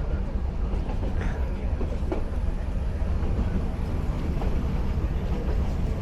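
Nilgiri Mountain Railway train running along the track: a steady low rumble with a few faint clicks.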